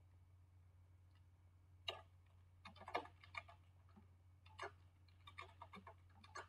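Faint computer keyboard keystrokes: irregular clicks, single and in short runs, the strongest about two and three seconds in, over a steady low hum.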